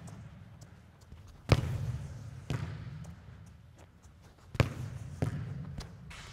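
Football being kicked against a wall and rebounding: about five sharp thumps, the loudest about one and a half seconds in and again near the end, each trailing a low boom.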